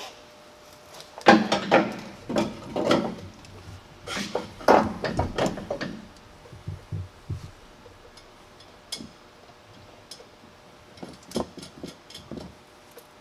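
Irregular metal clanks and knocks as a front strut fitted with an aluminum leveling spacer is handled and worked up into the truck's upper strut mount, in two busy clusters with a few scattered knocks later.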